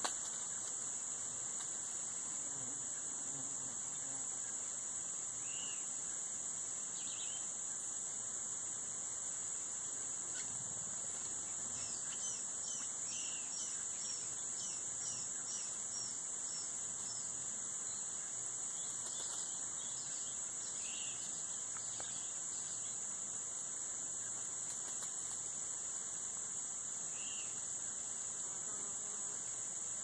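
Steady, shrill insect chorus, an unbroken high-pitched trilling drone. Faint bird chirps come over it, a quick run of short notes about twelve seconds in and a few more around twenty seconds.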